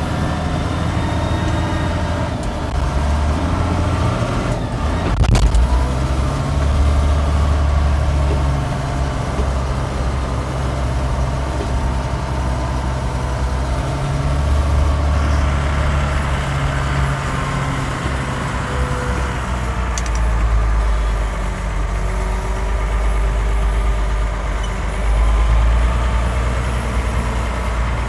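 Tractor diesel engine running, heard from inside the cab while the front loader works, its low rumble rising and falling with load. A couple of sharp clicks are heard, about five and twenty seconds in.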